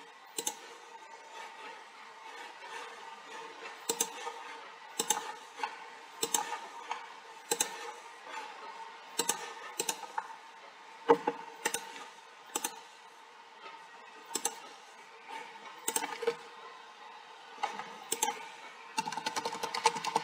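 Computer keyboard keys clicking in scattered single strokes, roughly one a second, with a quick run of keystrokes near the end, over a faint steady hum.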